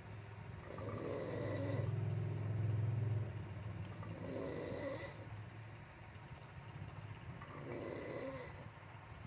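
A sleeping person snoring, a rasping snore on each breath, about three breaths roughly three seconds apart. The deepest, loudest rumble comes about two to three seconds in.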